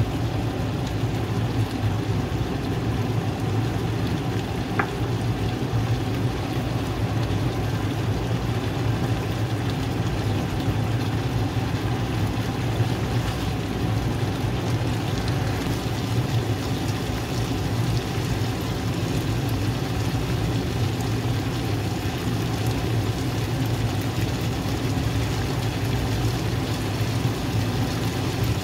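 Pork binagoongan simmering in a frying pan, a steady sizzle and bubble over a continuous low hum.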